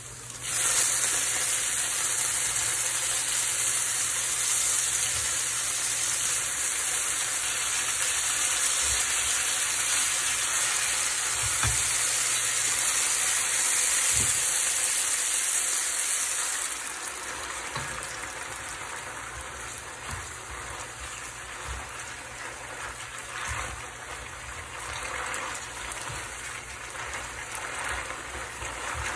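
Hot olive oil with sliced garlic and chamnamul sizzles loudly as wet spaghetti goes into the frying pan about half a second in. The sizzle stays strong, then eases to a softer frying sound about two-thirds of the way through while the pasta is stirred with tongs.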